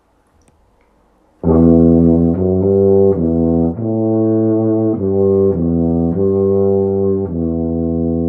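Mirafone 1865U five-valve C tuba played with a Mirafone C4 mouthpiece. After a moment of near silence, a phrase of about nine notes begins about a second and a half in and moves up and down in pitch. It ends on a long held note.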